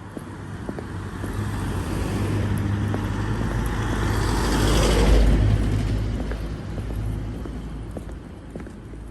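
A car passing by on a street: its sound builds to a peak about halfway through, then fades away. Faint footstep clicks sound under it.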